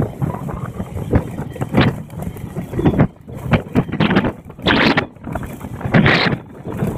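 Wind buffeting the microphone in irregular gusts, over the 50 cc two-stroke engine of a Honda Dio scooter running at its top speed of about 60 km/h.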